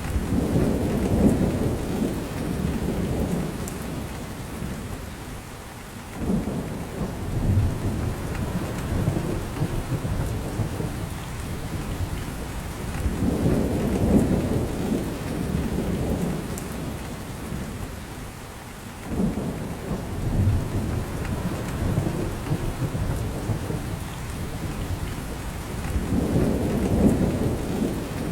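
Steady rain falling in a spruce forest, with drops dripping from the branches. Deep rumbling swells rise and fall about every six or seven seconds, the strongest near the start, midway and near the end.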